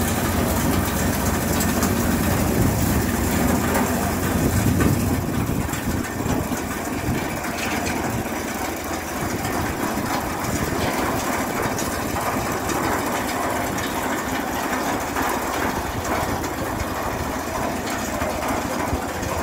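Tractor engine running steadily, driving a bale loader's chain conveyor as it carries straw bales up the elevator, with a continuous mechanical clatter over the engine sound.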